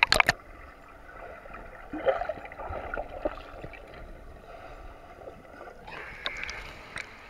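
Swimming-pool water heard with the microphone dipped underwater: muffled gurgling and bubbling, opening with a few sharp knocks and splashes. The sound opens up into ordinary splashing near six seconds, as the camera comes back above the surface.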